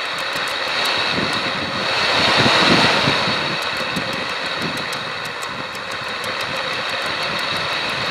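Electric motor of a car radiator cooling fan running steadily, growing louder for about a second near the three-second mark, with faint light ticking over the running noise.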